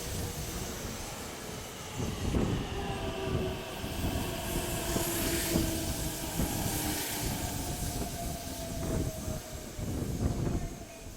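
Electric passenger train running past, its motor whine held as a steady tone that slowly falls in pitch, with wheels knocking over the rail joints.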